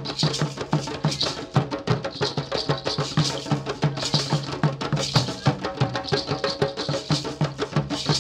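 Background music with a fast, steady percussion beat over a low, sustained bass.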